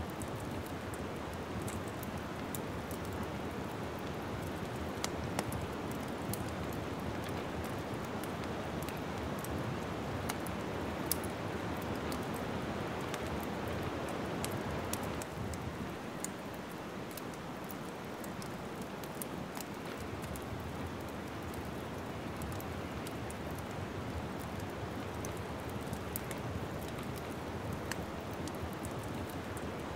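Wood fire crackling in a fireplace: a steady soft rushing of flames with frequent small sharp pops and snaps scattered throughout.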